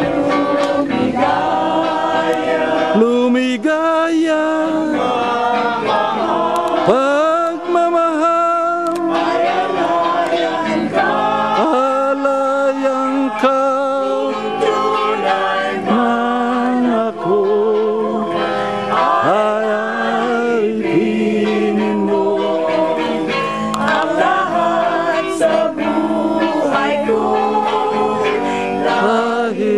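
A song sung by several voices together, carrying on without a break.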